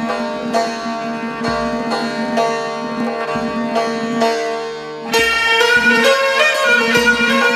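Persian traditional instrumental music in the Dashti mode, played on santur, kamancheh and tombak: struck string notes ring on over a held tone. The playing grows louder and busier about five seconds in.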